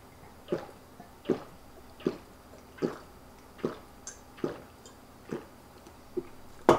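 A person gulping down a cold energy drink from a glass mug in big swallows, about seven gulps at an even pace of a little more than one a second. Near the end the drinking stops with a single sharper, louder sound.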